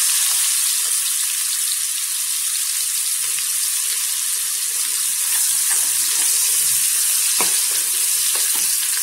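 Finely chopped onion sizzling steadily in hot oil, just added to a tempering of mustard and cumin seeds in a metal kadai. It is stirred with a spatula near the end, with a few light knocks against the pan.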